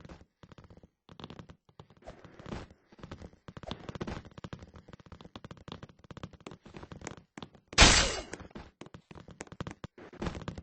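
Handling noise from unboxing: a rapid run of small clicks, taps and scrapes, with one loud, sharp crackle just under eight seconds in.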